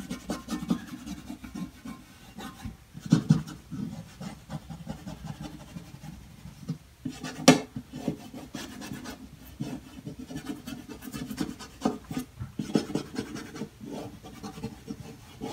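Fingers and thumbnail rubbing over a vinyl decal's transfer masking, pressing it down onto the kiosk panel with an irregular scratchy rubbing. There is one sharp click about halfway through.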